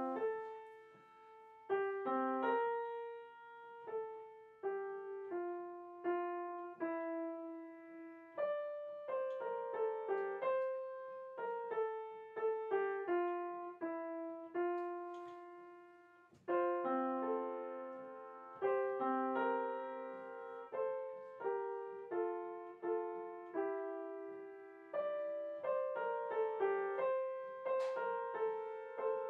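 Background solo piano music: notes and chords struck and left to fade, with a short pause about halfway before the next phrase begins.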